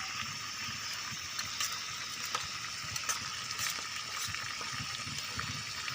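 A pot of potato soup boiling: a steady hiss with scattered small pops and low bubbling.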